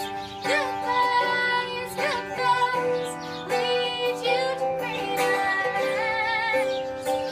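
Music: a song with a high female singing voice, its held notes wavering, over plucked guitar accompaniment.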